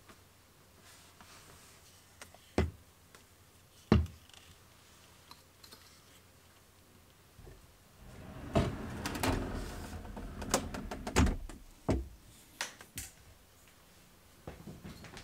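Scattered sharp knocks and clicks of things being handled. About eight seconds in comes a busier stretch of rustling and clattering lasting several seconds, then a few more clicks near the end.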